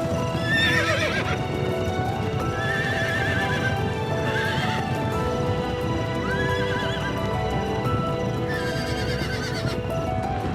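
Horses whinnying several times, about five calls spread across the stretch, over the drumming of hooves of a running herd, with music underneath.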